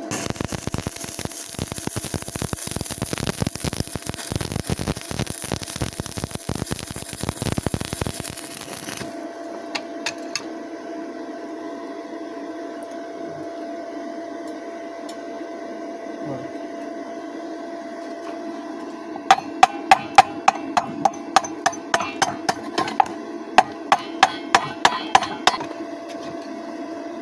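Stick welding arc crackling and sizzling for about nine seconds, then cutting off, leaving a steady electrical hum. Later comes a run of sharp metal-on-metal taps, about three a second for some six seconds, like a chipping hammer knocking slag off a fresh stick weld.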